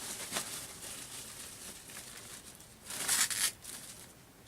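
Rustling and scraping from handling the monitor, its stand and plastic packaging, with a louder rustle about three seconds in.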